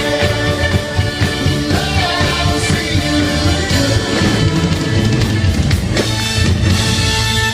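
Live band playing an upbeat number with drum kit, bass and guitar and some singing; the music stops abruptly at the very end.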